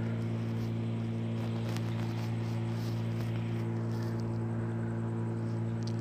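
Steady electrical mains hum: a low drone with several steady overtones above it, unchanging throughout, with a faint click or two from handling.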